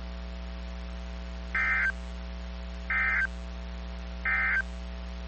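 Emergency Alert System end-of-message code on NOAA Weather Radio: three short bursts of digital data tones, about a second and a third apart, over a steady low hum.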